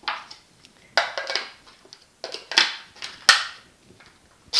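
Clear plastic lid of a food processor being set on the bowl and twisted into place: a series of short plastic clacks and scrapes. At the very end the food processor's motor starts with a loud whirring pulse.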